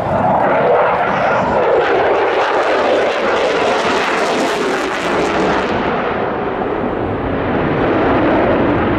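F-22 Raptor fighter jet flying a display pass on afterburner: a loud, ragged jet roar with a crackling edge, harshest about four to five seconds in. About six seconds in, its high hiss drops away and a duller roar goes on.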